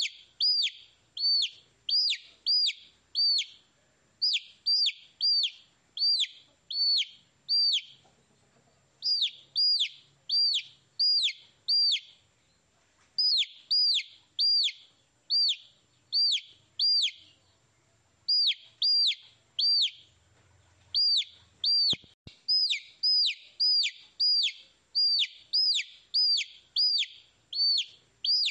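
Baby chicks peeping: high chirps, each sliding down in pitch, coming in quick runs of three to five with short pauses between the runs.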